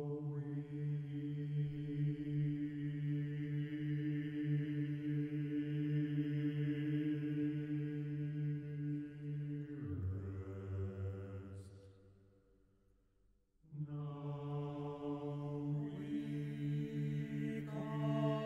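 Male-voice choir singing long held chords. About ten seconds in, the upper voices drop out and the low voices fade away to a short pause. The choir then comes back in, and higher voices join near the end.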